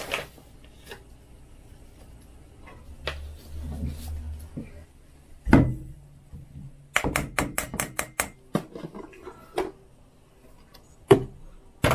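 Kitchen handling sounds: scattered knocks and clicks of utensils and containers, a heavier thud about five and a half seconds in, then a quick run of about ten sharp taps, roughly six a second, followed by a few single knocks.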